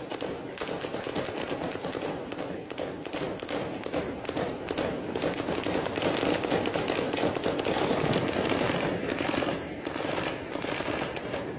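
Heavy, sustained gunfire: live rounds cracking many times a second without a break over a steady background din, swelling a little past the middle.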